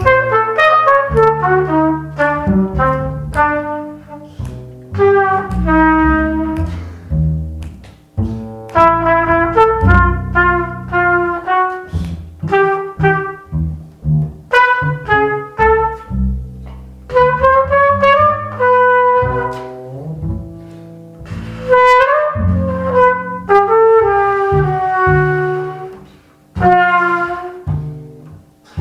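Live jazz duo playing a slow ballad: a melody line of held notes, some sliding between pitches, over low bass notes, phrase after phrase with brief breaths between.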